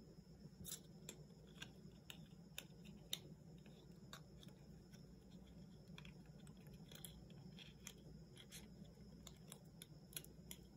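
Faint, irregular small clicks and crinkles of a coiled USB charging cable being handled and unwrapped from its plastic sleeve, over a faint steady low hum.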